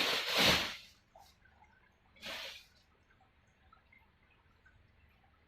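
Rustling of a packaged blanket being handled, loudest in the first second, with a shorter, fainter rustle about two seconds in, then quiet.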